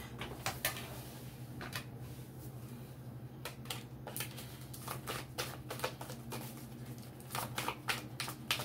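Tarot cards being shuffled by hand: irregular clusters of quick card clicks and flicks, over a steady low hum.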